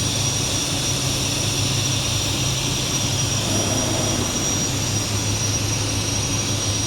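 TIG welding arc on pipe: a steady hiss with a low hum that drops slightly in pitch about three seconds in, and a thin high steady whine.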